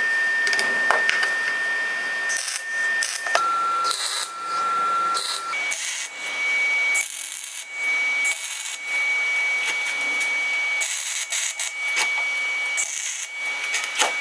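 A hand tool scraping and brushing over welded steel plate in short repeated strokes with brief pauses between them, the way welds are cleaned up. A steady high whine runs underneath and steps to a new pitch twice.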